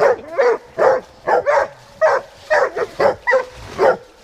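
Hog-hunting hounds barking in quick, repeated short barks, about a dozen in four seconds.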